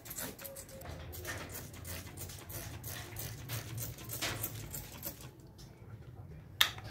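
Hand-pump trigger spray bottle squirting pesticide onto plant leaves in quick repeated spritzes near the start. Scattered rustling strokes follow, and there is one sharp loud click near the end.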